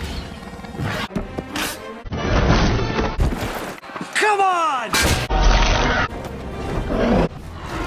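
Movie action sound mix: music under a string of thuds and impacts, with abrupt cuts between clips. About four seconds in comes a loud cry that falls steeply in pitch.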